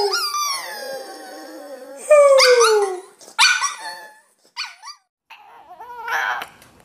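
French bulldog howling: several drawn-out calls, each sliding down in pitch, the later ones shorter.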